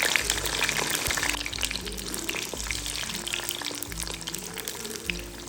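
French fries deep-frying in hot oil: a dense, steady crackle of sizzling bubbles that eases slightly toward the end. Faint background music plays underneath.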